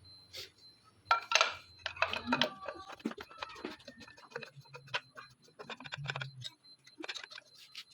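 Irregular light clicks and taps of small hard objects being handled, with a faint low hum at times.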